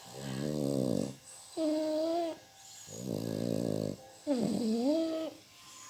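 A sleeping dog snoring in a steady cycle. A buzzy, rasping snore on each in-breath alternates with a whistling, whine-like note on each out-breath, about every three seconds; the second whistle dips and rises in pitch.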